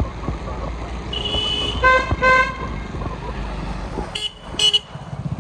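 A vehicle horn toots twice in quick succession about two seconds in, over the steady rumble of driving along a road. Shorter high-pitched beeps come just before it, and twice more near the end.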